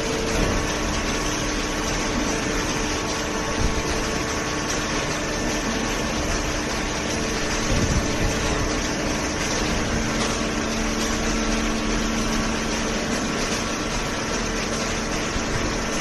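Horizontal hydraulic cardboard baler and its feed conveyor running: a steady machine hum with a few held tones over an even noise.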